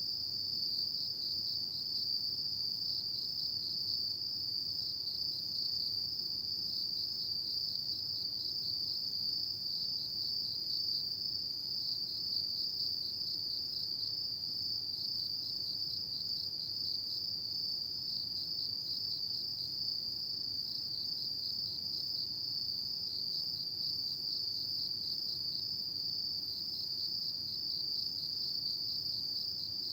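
Autumn crickets chirping in chorus: one steady, high-pitched trill with a fast pulsing rhythm that never stops.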